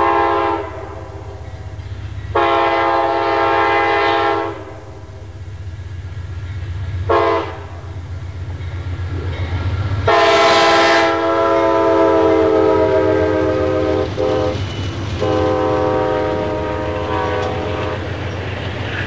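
Diesel locomotive air horn sounding the grade-crossing pattern over the steady low rumble of the train: long, long, short, then a final long blast held for several seconds with a brief break.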